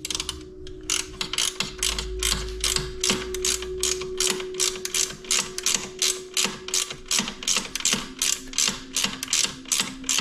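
Hand ratchet clicking in a steady run of short strokes, about three to four clicks a second, starting about a second in, as bolts are run in on a motorcycle luggage mounting plate.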